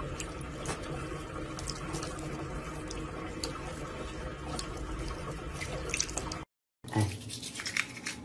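Water running steadily from a bathroom tap into a sink basin, with small drips and splashes. About six and a half seconds in it cuts off, and after a brief silence a toothbrush scrapes briefly.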